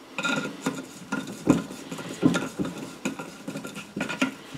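Screwdriver handle with a socket extension turning a nut onto a scooter exhaust silencer's mounting bolt: irregular metal clicks and short scrapes, a few a second, as the nut is run down.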